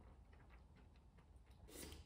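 Faint mouth sounds of eating noodles: soft small clicks of chewing, with a short breathy puff at the lips near the end.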